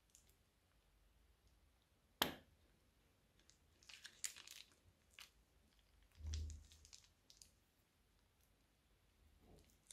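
A plastic piping bag being squeezed and handled, mostly near silent: a sharp click about two seconds in, then short crackly plastic rustles around the middle, with a soft low bump among them.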